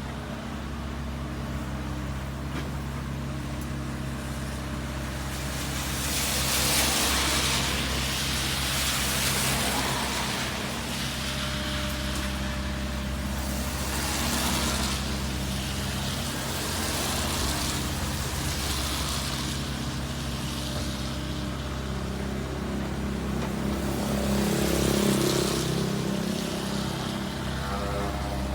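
Heavy diesel machinery running steadily: a Komatsu excavator working beside a dump truck. A rushing hiss swells and fades every few seconds over the steady engine note.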